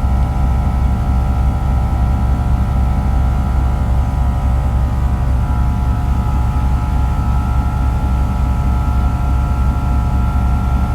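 A steady mechanical drone: a low, rapidly pulsing rumble with a faint steady whine above it that grows a little stronger about halfway through.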